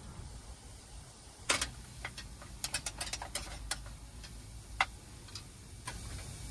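Kitchen knife cutting on a cutting board, sharp clicks: a quick run of about half a dozen cuts in the middle, then a few single cuts.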